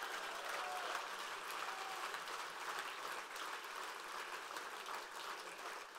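Audience applauding steadily, a dense patter of many hands clapping that begins to fade near the end.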